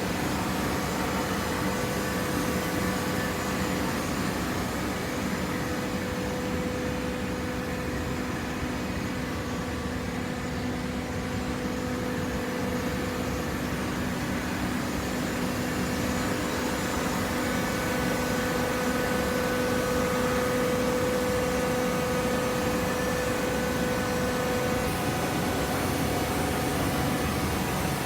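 Small gasoline engine powering a baler's hydraulics, running at a steady speed with a constant hum. It grows a little louder about two-thirds of the way through.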